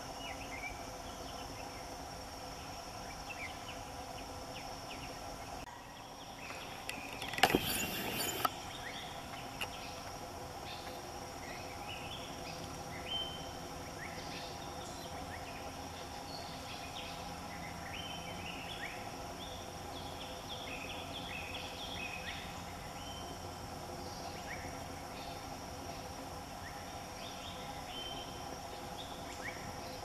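Steady insect drone of several constant tones, with many short high chirps scattered through the second half. About seven seconds in, a brief burst of loud knocks and clatter.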